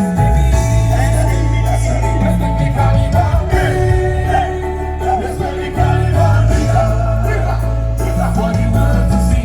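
Live band music with a heavy bass line and held chords, a voice singing over it.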